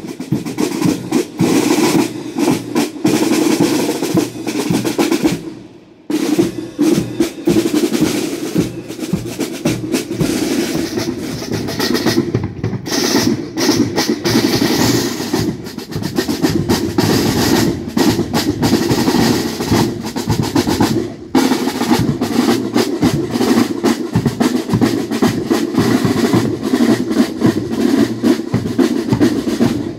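A marching drum section playing snare drums in a fast cadence with rolls. It breaks off briefly about six seconds in, then carries on.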